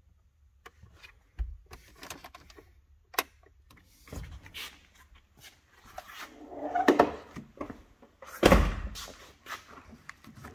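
Irregular knocks, clunks and handling noises from work inside a car interior, with a longer rough, scraping sound about seven seconds in and a heavy thud at about eight and a half seconds.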